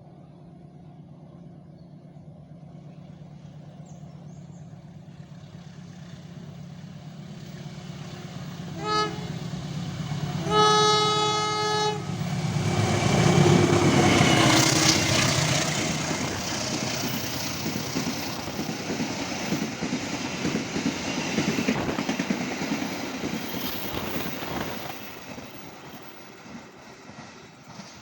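Train approaching with a building rumble, sounding its horn: a short toot about nine seconds in, then a longer blast of about a second and a half. It then passes loudly, with wheel and rail clatter, and fades away near the end.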